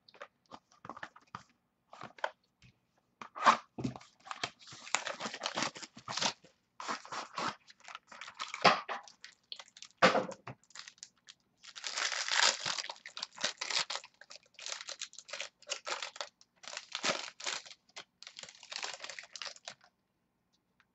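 Trading card packaging being torn open and crumpled by hand, with cards being handled: irregular tearing, crinkling and crackling with small clicks, in several loud stretches that stop near the end.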